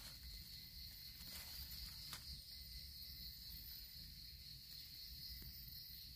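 Forest insects keeping up a steady, high-pitched drone, with a faint low rumble underneath and a light click about two seconds in.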